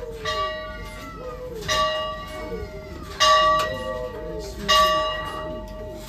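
Church bell tolling at an even pace, about one stroke every second and a half, four strokes in all, each hum ringing on into the next. The last two strokes are the loudest.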